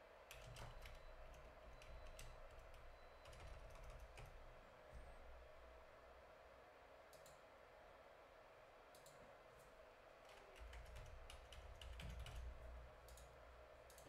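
Faint typing on a computer keyboard: two runs of quick keystrokes, one in the first few seconds and one in the second half, with a pause between.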